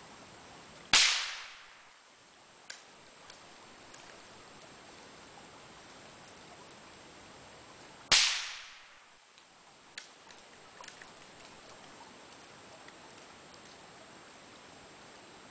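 Two rifle shots about seven seconds apart from a Krico .22 LR rifle fitted with a homemade copper-and-brass suppressor. Each is a sharp crack that fades over about a second. The high-speed, non-subsonic ammunition means the suppressor does not make the shots silent. A few faint clicks follow each shot.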